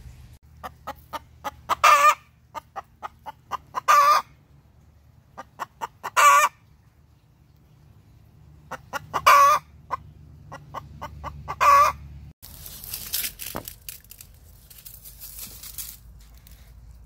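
Laying hen singing the egg song: runs of short clucks speeding up into a loud, drawn-out "ba-gawk" call, five times over about ten seconds, the cackle a hen gives around laying an egg. After the last call there are a few seconds of softer rustling.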